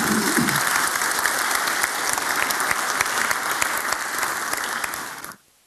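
Audience applauding with many overlapping claps, which cut off suddenly about five seconds in.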